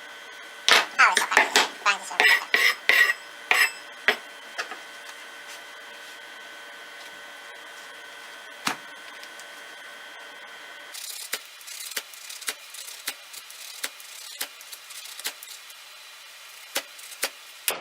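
Ferrocerium firestarter rod on a pocket knife being scraped to throw sparks: a quick flurry of scrapes, then after a pause a run of single sharp strikes about two a second. The strikes are not yet lighting the tinder.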